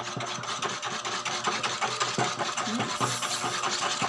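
A utensil beating a batter of egg and grated potato in a bowl, clicking and scraping against the bowl in a fast, uneven rhythm.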